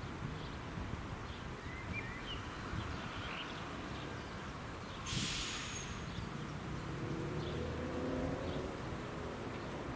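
Outdoor ambience with a low wind rumble and a few faint bird chirps in the first seconds. There is a short hissing burst about five seconds in, and a faint droning hum sets in near the end.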